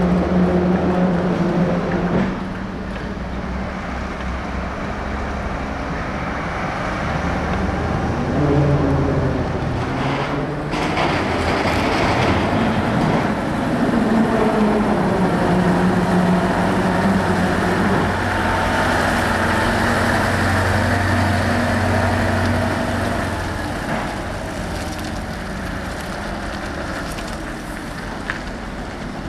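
Heavy trucks' diesel engines running as the trucks pull away and manoeuvre, the engine note rising and falling several times with throttle and gear changes.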